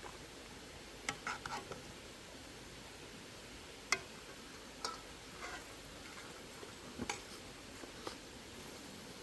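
Irregular light clicks and taps from cooking utensils and pots being handled, over a faint steady background; the sharpest tap comes about four seconds in.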